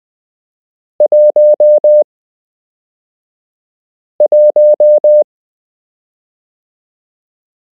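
Morse code practice tone: a single steady beep keyed into dots and dashes, sending two characters of about five elements each, about three seconds apart, as Morse numbers.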